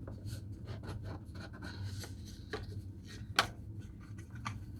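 Hands handling a wristwatch as it is taken out to be looked at: light rubbing and rustling with scattered small clicks, and one sharper click about three and a half seconds in, over a faint steady low hum.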